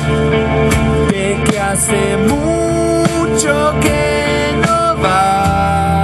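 Live rock band playing: electric guitar, bass, keyboard and a drum kit keeping a steady beat. A male lead voice sings long held notes, sliding between pitches, through the second half.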